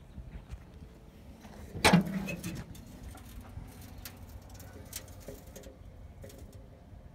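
A loud metallic clunk about two seconds in, as the steel hood of a 1949 Dodge pickup is unlatched and raised, with a brief low ringing from the sheet metal. A few faint clicks and handling sounds follow.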